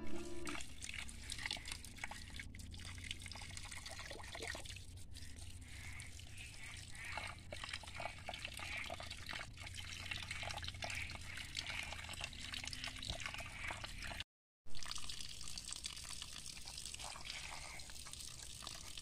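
Small stream of water trickling and splashing over rocks, with many small drips. Music ends about half a second in, and a short cut in the sound about two-thirds of the way through is followed by a brief loud bump.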